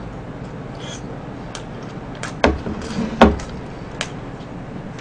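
A small bowl is set down on the table: two knocks with a dull thud about a second apart, the second the louder, among a few lighter clicks of chopsticks.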